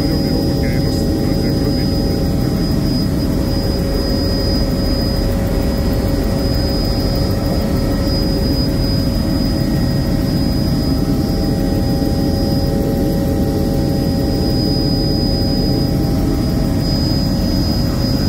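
Helicopter in level flight heard from inside its cabin: a steady, loud drone of engine and rotor with a constant high whine above it.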